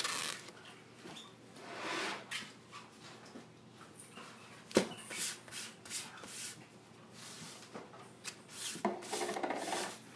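Hands rubbing a mesh Chalk Couture transfer against a fuzzing cloth, which takes off some of its stickiness: repeated soft swishing strokes, with one sharp tap about five seconds in.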